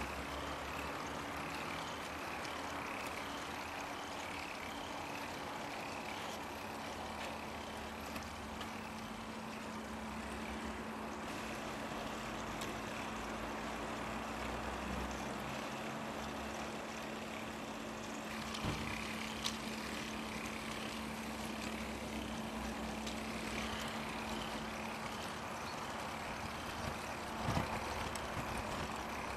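K'nex kinetic sculpture running: its small electric motor hums steadily while its 45 plastic gears turn with a continuous whirring clatter, with a few sharper clicks about two-thirds of the way through and near the end.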